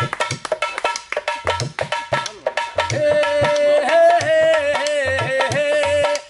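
Dholak, a two-headed barrel drum, played by hand in a quick rhythm, with deep thumps from its bass head. About three seconds in, a man's voice joins it, singing long held, wavering notes.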